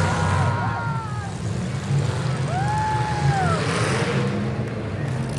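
Demolition derby car engines running together in a steady low rumble. Twice a high tone rises, holds briefly and falls away over it, the second one, about halfway through, the plainer.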